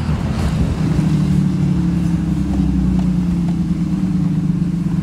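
Third-gen Dodge Ram's 5.9 Cummins turbo-diesel straight-six heard from inside the cab, settling into a steady drone about a second in as the ECM-controlled exhaust brake holds the truck back while it slows.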